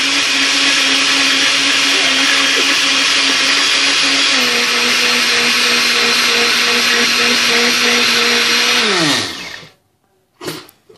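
Countertop blender with a glass jar running steadily as it purees a smoothie; its motor hum drops slightly in pitch about four seconds in. Near the end it is switched off and the motor winds down to a stop, followed by a short knock.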